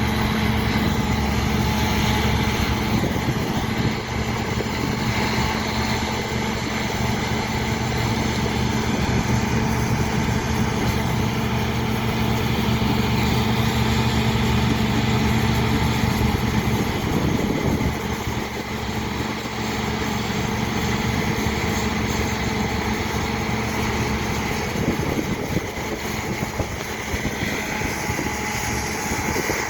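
Combine harvester running steadily, a continuous engine drone with a steady hum. It eases off slightly a little past halfway.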